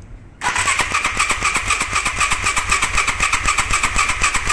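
Electric starter cranking a Chinese Hojan motorcycle engine, starting about half a second in and going on steadily with a fast even pulse. The engine doesn't fire because the spark plug lead is held off the plug for a spark test.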